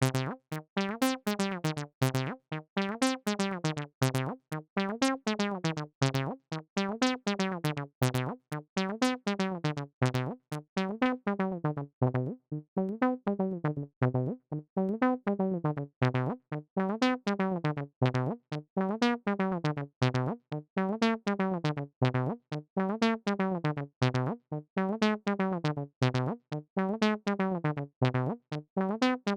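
A browser-based TB-303 bass synthesizer emulator playing a fast, looping sequence of short bass-synth notes, each bright at the start and quickly dulling. The same pitch pattern repeats about once a second.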